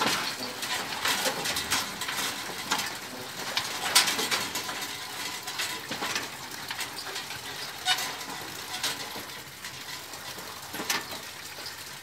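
Countryside windmill's turning mechanism: irregular clacks and knocks over a steady hiss, slowly growing quieter.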